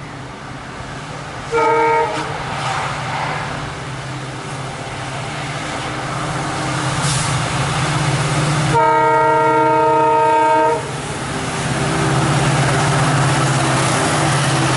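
WDP4D diesel-electric locomotive approaching with its 16-cylinder two-stroke EMD 710 engine running, a steady low drone that grows louder as it nears. It sounds its multi-tone air horn twice: a short blast about two seconds in and a long, loud blast of about two seconds near the nine-second mark.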